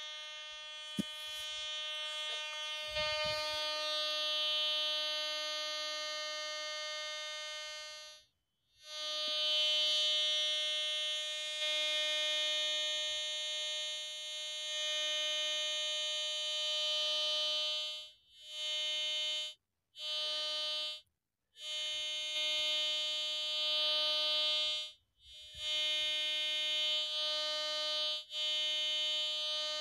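Duramaxx MD-350 metal detector sounding a steady, buzzy alert tone at one fixed pitch as its coil sweeps over a knife lying in the grass. A lower buzz pulses on and off within it, and the tone cuts out briefly about eight seconds in and several more times in the second half.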